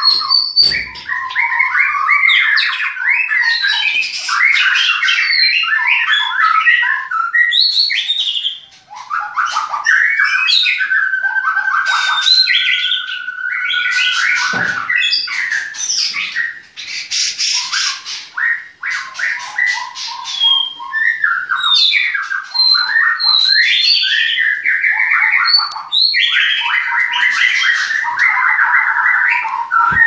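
Caged songbirds singing a continuous, varied song of loud whistles and quick chattering phrases, with one long steady whistle about halfway through.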